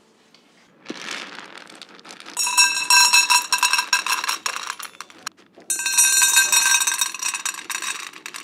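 Dry dog kibble poured from a plastic container into stainless steel bowls: the pellets clatter on the metal and set the bowls ringing. This comes as two pours, with a short break about five seconds in, after a softer rush of kibble sliding in the container.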